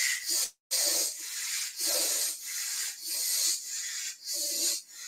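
Strong, rapid breathing through the nose, inhales and exhales following each other in a steady rhythm of about one to two a second, paced to the forward-and-back rocking of a Kundalini yoga spinal flex.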